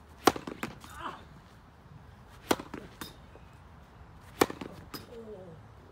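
Sharp knocks of a tennis ball: a tennis racquet striking the ball about a quarter-second in, then more knocks, three loud ones about two seconds apart with smaller ones between. Faint voices come in twice.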